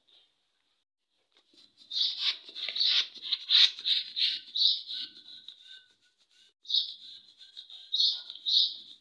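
Long black latex modelling balloon being inflated with a hand pump, giving a run of short, high squeaky chirps as it fills, starting about two seconds in, with a few more squeaks near the end.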